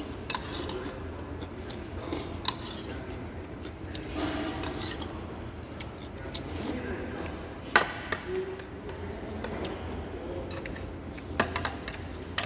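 Metal spoon and chopsticks clinking against a soup bowl and meal tray during eating: a handful of sharp clinks, the loudest a little past halfway and a quick cluster near the end, with soft eating sounds between.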